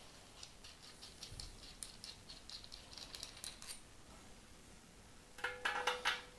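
Small metal screws and spacers clicking faintly as they are handled. Near the end come louder metallic clinks, with a ringing tone that holds on.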